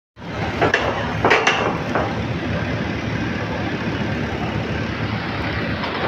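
Outdoor construction-site background noise: a steady low rumble, with a few short sharp sounds in the first two seconds.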